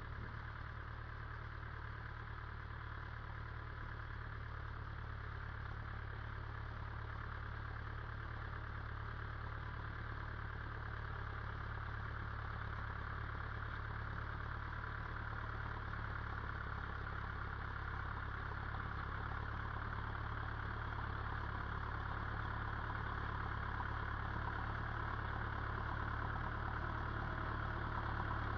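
Ferguson tractor engine running steadily, growing gradually louder as the tractor comes closer.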